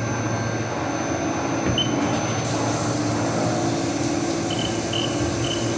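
Haas VF3 vertical machining center running a cut with coolant on: a steady whir with a low hum, a hiss that rises about two and a half seconds in, and a few short high chirps near the end.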